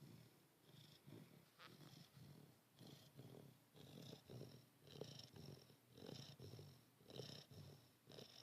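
Great Pyrenees dog snoring faintly in its sleep: a rasping breath about once a second, each with a thin high whistle.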